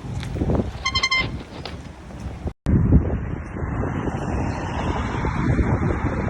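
An air horn gives a short, high blast about a second in, over street traffic noise. After a sudden cut, steady traffic and wind noise.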